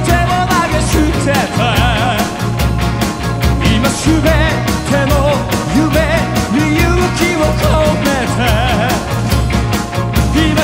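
Live rock band playing at full volume: drums keep a steady beat under bass, electric guitar and a wavering melody line, with a lead singer in the mix.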